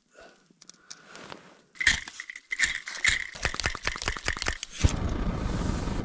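Flint and steel scraped again and again over a liquid-fuel backpacking stove: a quick run of sharp scrapes and clicks about two seconds in. About five seconds in the burner lights and runs with a steady rushing flame noise. The stove is short of pressure, which the owner puts down to a dirty burner head.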